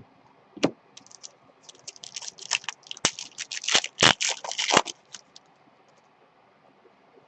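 Trading cards being handled: a quick run of crisp clicks and rustling starting about half a second in and lasting about four seconds.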